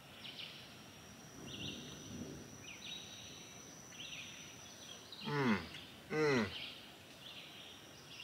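Woodland ambience: a steady thin high-pitched whine with short buzzy calls repeating about once a second, and two louder pitched animal calls, one right after the other, a little past the middle.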